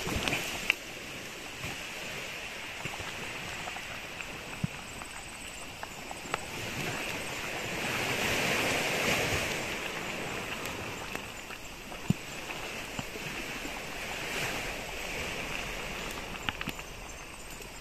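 Surf washing onto a beach: an even wash of water noise that swells up about eight seconds in and again, more weakly, around fourteen seconds, with a couple of small knocks.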